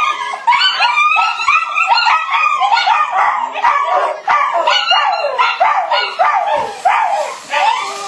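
Puppy barking in a rapid, unbroken string of high-pitched yips, about two to three a second.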